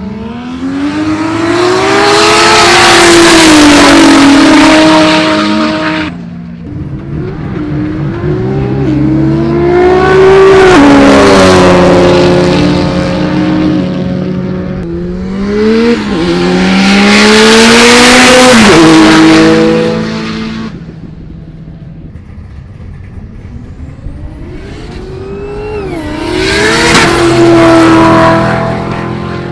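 Race cars accelerating hard in roll racing, four loud runs one after another. Each swells up and fades away, and the engine pitch climbs and drops back at the gear changes.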